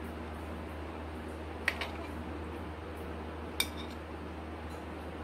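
A steel spoon clinks twice against the dishes as meat and potatoes are spooned out of a clay pot onto a ceramic plate, over a steady low hum.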